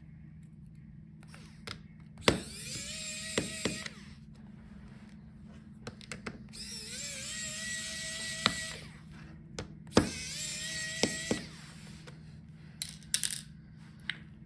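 Small electric screwdriver spinning to back out the laptop's motherboard screws, in three short runs of one to two seconds, each opening with a click and a brief rise in pitch before running steady.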